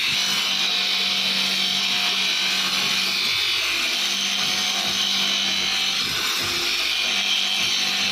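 Electric grinder working a steel knife blade: a steady motor hum under a continuous rasping hiss of abrasion.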